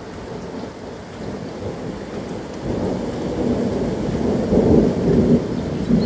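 Thunder rolling over steady rain, the rumble building from about halfway through and growing louder toward the end.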